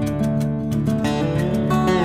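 Background music led by plucked acoustic guitar, with notes changing every fraction of a second.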